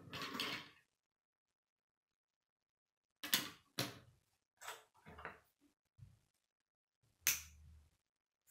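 Plastic K'nex rods and connectors being handled and snapped together: a short rustle of pieces at the start, then about six sharp plastic clicks and knocks in the second half, the loudest near the end.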